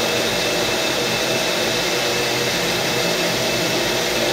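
Countertop blender running at a steady whir, blending a protein shake of milk, banana and raspberries.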